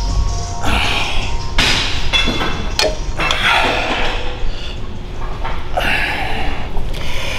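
A set on a seated leg curl machine: hard exhalations come about every two to three seconds, with a few sharp knocks from the machine's weight stack.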